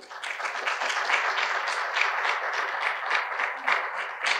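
Audience applauding: many hands clapping together, starting at once and keeping up at a steady level.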